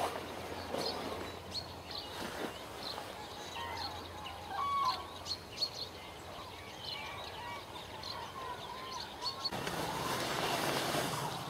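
A flock of common cranes calling, many short trumpeting calls overlapping one another. Near the end a rushing noise comes in over the calls.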